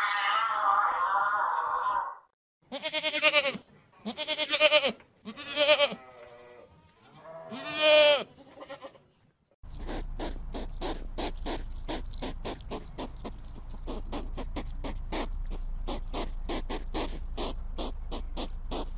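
Four drawn-out, pitched animal calls, each bending in pitch, then a hedgehog snuffling and huffing as it forages, a steady run of short sharp puffs at about four a second.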